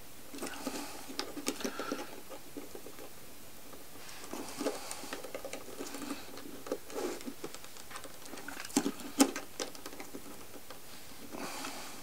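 Pliers clicking and scraping on the thin metal tabs of a brake light switch as the tabs are bent back, in scattered small clicks and taps. The sharpest clicks come about nine seconds in.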